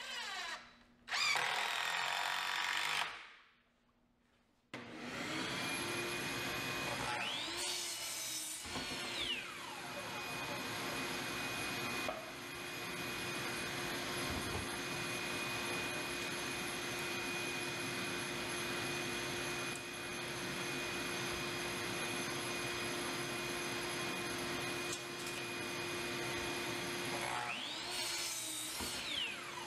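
A power tool's motor running steadily for most of the stretch, after a short loud burst of noise and a brief pause near the start.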